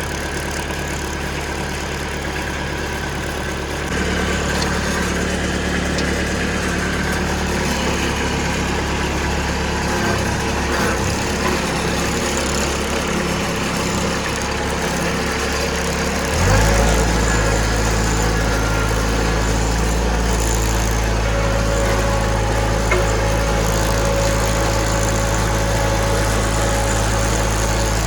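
Kubota B2710 tractor's three-cylinder diesel engine running steadily just after being started on its glow plugs. Its note steps up about four seconds in, and changes again with a brief surge at about sixteen seconds before settling to a steady run.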